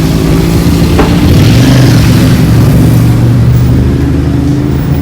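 Loud, steady running of a motor vehicle engine, with a swell of noise a second or two in.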